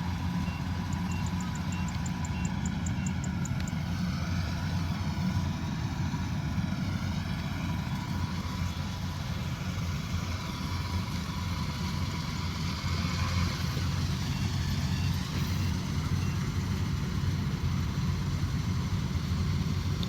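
Combine harvester's diesel engine running steadily under harvesting load, a continuous low drone. A faint series of quick high beeps sounds in the first few seconds and again briefly past the middle.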